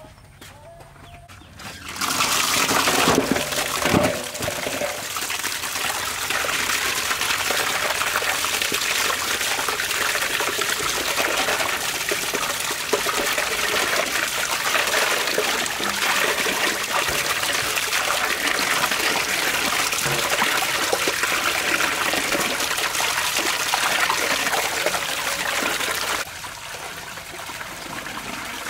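Tap water pouring into a metal basin and splashing over cow legs as they are scrubbed by hand. The flow starts loud and steady about two seconds in, with a knock at about four seconds, and turns quieter near the end.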